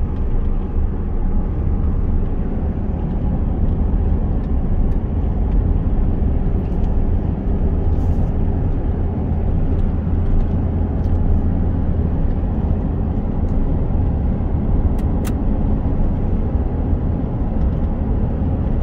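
Steady low rumble of a truck driving, heard from inside the cab: engine and road noise at an even speed on a winding road, with a few faint ticks.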